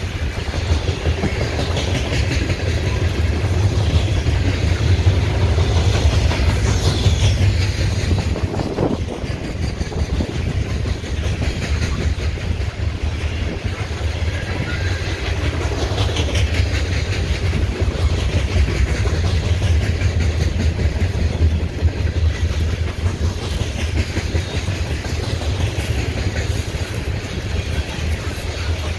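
Freight train of open-top hopper cars rolling past at steady speed: a steady low rumble of wheels on rail, with repeated clicks as the wheels pass over the rail joints.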